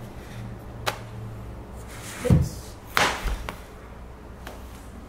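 A few separate knocks and thumps of things being handled or set down: a small click about a second in, the loudest dull thump a little after two seconds, and a sharper clatter just after three seconds.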